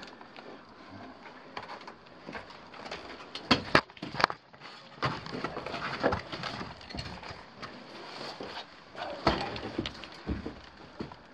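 Irregular knocks, scuffs and scrapes of someone moving over loose rock and old mine timbers, with two sharper knocks just under four seconds in.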